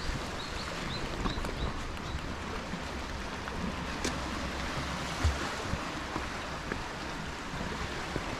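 Sea surf washing steadily, an even rushing noise with a low wind rumble on the microphone.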